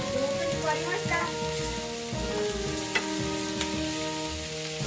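Onions sizzling in a frying pan as they are stirred and stir-fried, with a sharp knock of the utensil about three seconds in.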